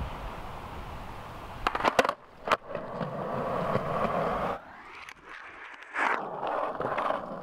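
Skateboard wheels rolling on smooth concrete, with a few sharp clacks about two seconds in. The rolling noise drops away for about a second and a half past the middle, then picks up again.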